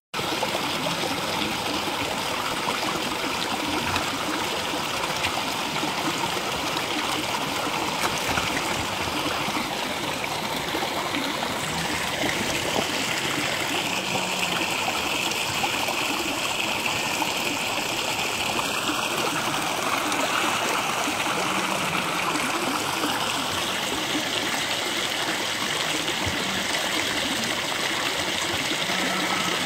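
A stream flowing, a steady rush of water.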